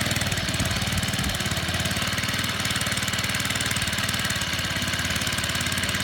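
Small engine of a firewood conveyor running at a steady speed, with an even, rapid firing beat.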